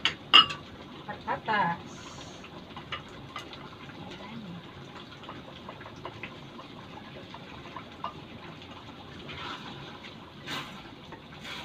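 A wooden spoon scraping potato chunks out of a metal bowl into a wok of simmering stew, with a sharp clink of spoon on bowl at the start, then a steady bubbling hiss of the sauce with scattered small knocks as the potatoes go in and are stirred.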